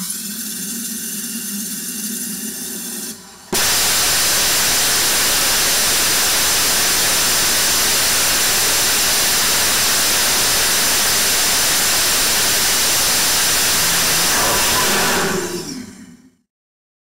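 Semi-cryogenic Agnilet rocket engine test firing: after about three seconds of quieter steady rushing with a low hum, ignition comes suddenly about three and a half seconds in as a loud, even rushing of exhaust noise that holds steady for about eleven seconds before fading away.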